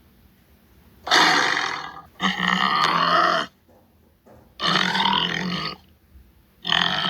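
Tiger giving four short, rough roaring grunts, each about a second long. The first two come back to back about a second in, and the others follow at intervals of a second or two.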